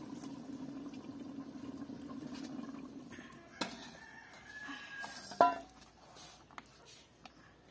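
A rooster crowing, one drawn-out call about three to five seconds in. Over it come metal knocks as an aluminium cooking pot is handled and lifted off a clay stove, the loudest a ringing clank about five and a half seconds in.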